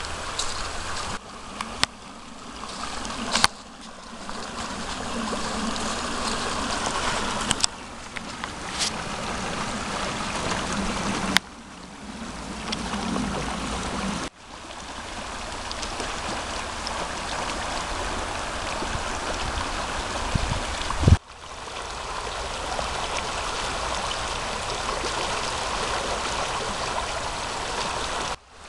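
Pirita River rushing steadily over a shallow, stony riffle. The sound breaks off and resumes abruptly several times, and there are a few sharp knocks, with a loud low bump about three quarters of the way in.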